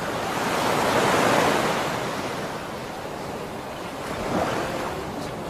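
Sea surf washing in. The wash swells loudest about a second in, eases off, and builds again with a smaller surge about four seconds in.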